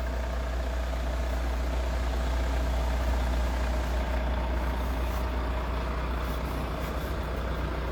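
Heavy truck engine idling steadily: a low rumble with a faint constant whine on top.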